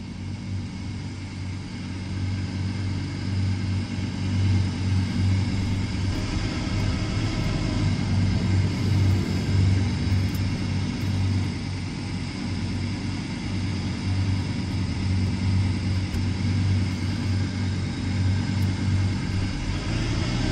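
Steady engine drone heard inside a moving car's cabin: a low throbbing note at a fairly constant pitch with no clear revving. It grows louder over the first few seconds, then holds steady.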